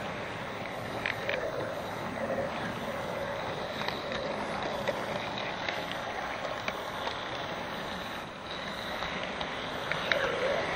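HO-scale model freight train rolling along its track, heard from a camera riding on the train: a steady rolling rumble with a few light clicks.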